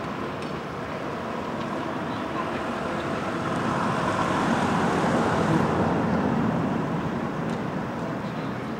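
Town-centre street noise: a steady traffic rumble that swells to a peak about halfway through and then fades, like a vehicle passing out of sight.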